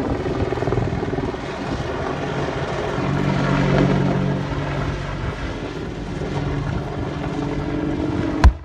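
Apache attack helicopter flying a diving run, its rotor and twin Turbomeca turboshaft engines running loud and steady, swelling about three to four seconds in. A sharp bang comes right at the end.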